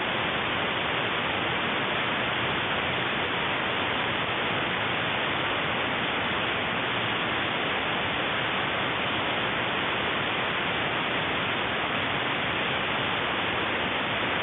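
Steady, even hiss of shortwave radio static from an AM receiver tuned to the 16.6 MHz band, with no programme audio coming through.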